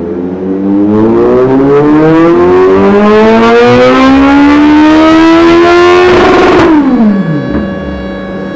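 Kawasaki Z900's inline-four engine, through an aftermarket exhaust, pulling hard with its revs climbing steadily for several seconds in one gear, as in a dyno run. It stutters briefly at the top, then the revs fall away quickly and settle a little before the end.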